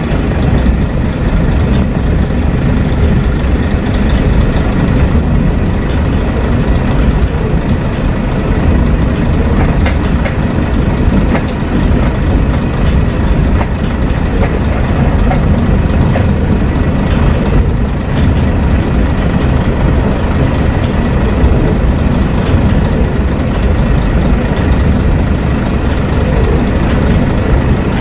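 Kashima Rinkai Railway 6000 series diesel railcar running along the line, heard from inside the passenger cabin: a steady, loud mix of engine and wheel-on-rail noise, heaviest in the low end, with a few faint ticks around the middle.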